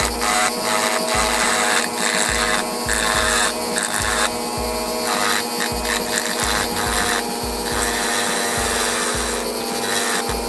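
Small pen-style rotary tool running at low speed, its bit grinding down a plastic model part in repeated short strokes over a steady motor whine. The low speed keeps the bit from melting the plastic.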